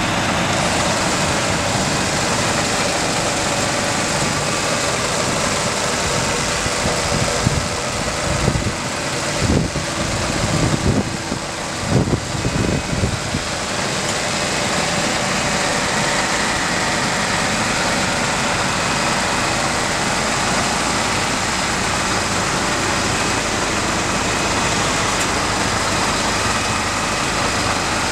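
Scania R470 truck's diesel engine idling steadily. A few seconds of irregular low thumps come partway through.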